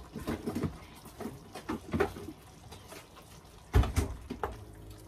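Kitchen clatter of cookware and utensils while cooking: irregular light knocks and clicks, with one louder knock a little before the end. A faint steady hum comes in near the end.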